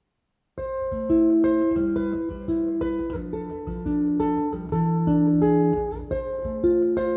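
Guitar music starts abruptly about half a second in: a plucked melody of held notes over bass notes.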